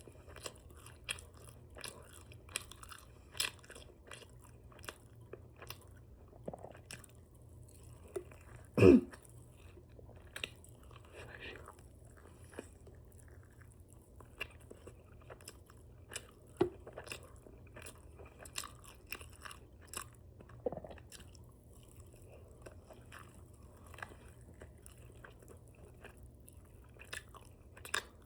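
Close-miked open-mouth chewing of chicken wings dipped in ranch: irregular wet smacks, lip and tongue clicks and bites, with some crunch. A brief spoken 'good' about nine seconds in is the loudest moment.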